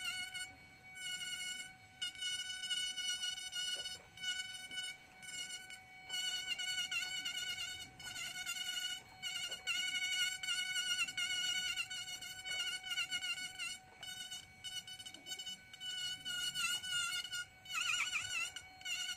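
Small handheld high-speed rotary carving tool giving a steady high whine as it grinds into the wooden bust, with many short dips and returns in loudness.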